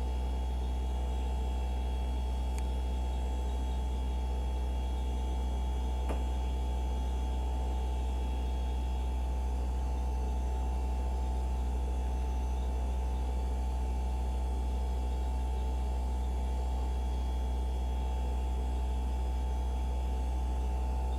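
Samsung RB41J7861EF refrigerator running on its first start-up, cooling down, with a steady, loud electric buzz and hum. A single faint click comes about six seconds in.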